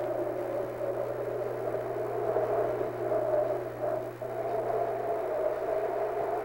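A steady, low rushing drone with a constant hum beneath it, dipping briefly about four seconds in.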